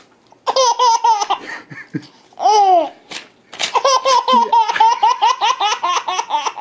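Baby laughing: a short run of rapid, high-pitched laughs, a single rising-and-falling squeal about two and a half seconds in, then a long unbroken string of quick laughs.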